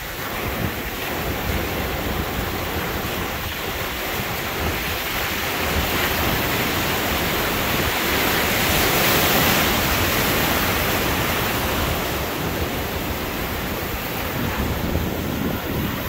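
Ocean surf breaking and washing up the beach, with wind buffeting the microphone. The wash swells to its loudest about halfway through as a wave breaks close by.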